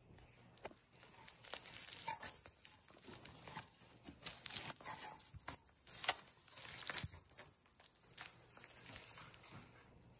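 Cat wrestling and kicking a burlap carrot toy in a heap of loose ribbon: crinkly rustling and scratching. The noise comes in quick irregular bursts, busiest through the middle.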